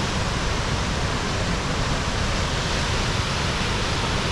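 Waterfall rushing: a steady, dense roar of falling water, level and unchanging.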